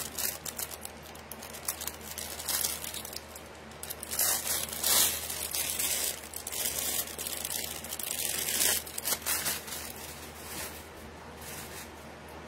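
Clear plastic jewelry bag crinkling and rustling as a necklace is packed back into it, in uneven spells of handling that ease off over the last couple of seconds.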